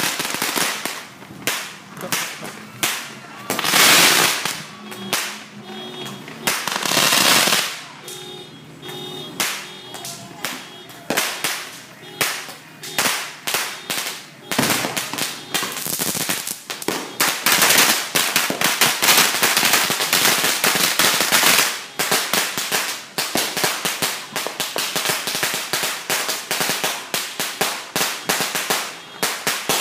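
Firecrackers going off in fast, uneven runs of sharp bangs, with two bursts of loud hissing early on and a dense stretch of crackling bangs about halfway through.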